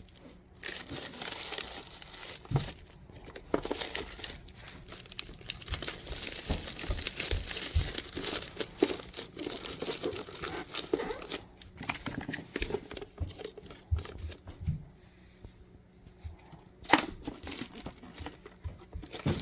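Items being packed and stacked into a small mini fridge by hand: irregular crinkling and rustling with scattered knocks and clicks, and one sharper knock near the end.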